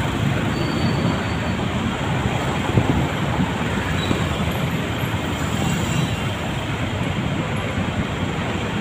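Steady low rumble of engines and road noise in slow, congested traffic, heard from a motorcycle close beside a minibus.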